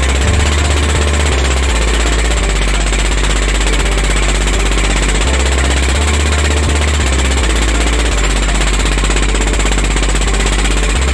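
A pompong boat's diesel engine running steadily under way, with strong wind buffeting the microphone.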